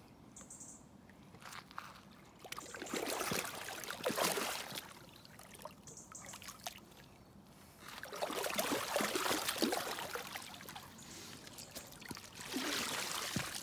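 Water splashing and sloshing as a sturgeon is held in the shallows and released from a landing net, in three bursts a few seconds apart, the last one short.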